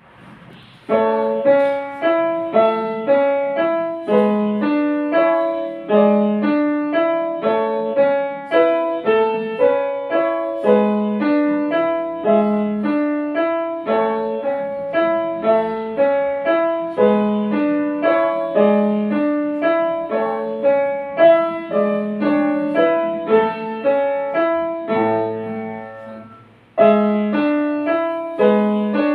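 Upright piano played with both hands at a steady, even pace. The music begins about a second in, dies away to a low bass note about 26 seconds in, and starts again a second later.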